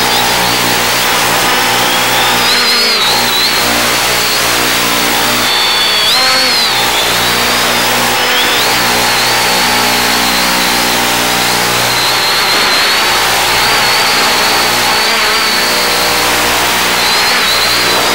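Quadcopter's electric motors and propellers whining through the analog video downlink's audio, the pitch wavering up and down with throttle, under loud steady radio hiss and a low hum.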